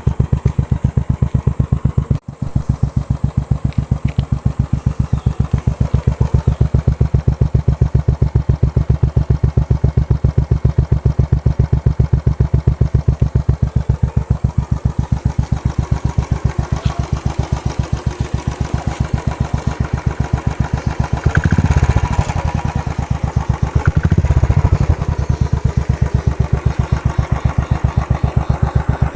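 Royal Enfield motorcycle with a Megaphone aftermarket exhaust idling with an even, deep beat of exhaust pulses. It is blipped briefly to higher revs twice, about two-thirds of the way through.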